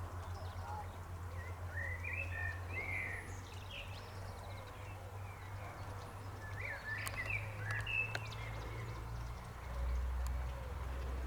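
Songbirds chirping in short phrases, twice, over a steady low rumble that shifts lower and a little louder near the end.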